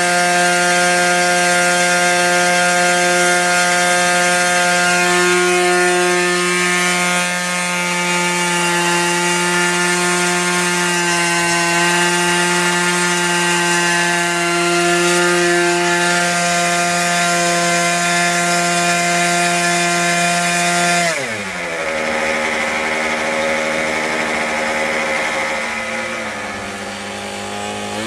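A Boomerang 40 model aircraft's single-cylinder glow engine and propeller run steadily at high revs during preflight engine checks, with the plane held nose-up. About 21 seconds in, the revs drop sharply to a lower, slightly uneven idle.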